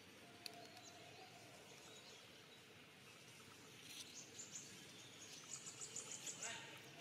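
Faint forest ambience: a steady low hiss with scattered faint bird chirps, and a quick run of high chirps from birds or insects in the second half.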